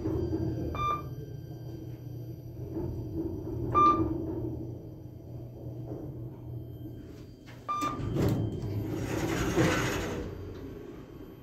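KONE elevator car travelling down with a low steady hum, sounding three short electronic beeps a few seconds apart. Near the end the doors slide open with a rush of noise as the car arrives.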